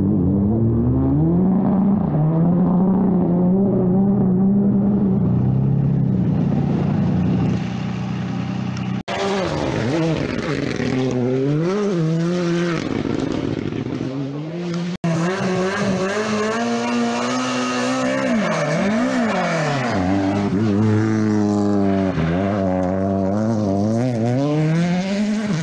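Rally car engines at full throttle on a special stage, in three clips cut together about 9 and 15 seconds in. The engine note holds steady at first, then climbs and drops again and again as the cars shift gears and lift for corners.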